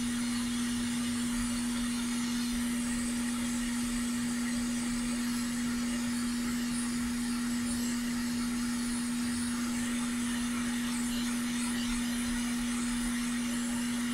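Hot air rework station blowing steadily on a circuit board: a constant airy hiss with a steady hum underneath.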